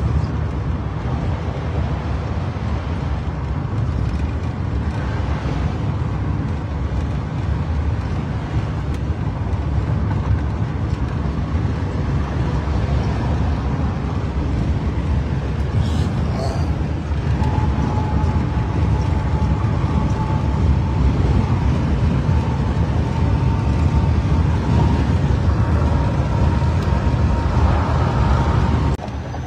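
Steady low rumble of a car's engine and tyres heard from inside the cabin of a moving police car, with a faint steady whine over the last ten seconds or so.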